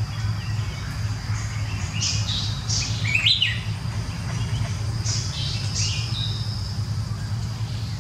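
Birds chirping in two short bouts, about two and five seconds in, over a steady low hum and a thin, steady high whine.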